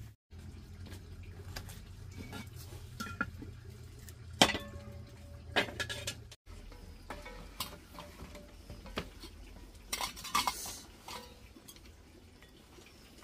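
Tableware clinking and knocking: stainless steel bowls, chopsticks and a wooden rice paddle against a metal pot as rice is served, in scattered separate clinks, the loudest about four seconds in.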